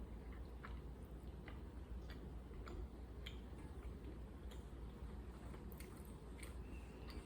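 A person eating and chewing, with irregular small sharp clicks from mouth and food about once or twice a second, over a low steady hum.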